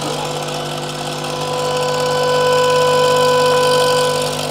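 A 16mm Photophone film projector running with a steady mechanical whirr. About a second in, a steady pitched tone comes in over it and holds until near the end.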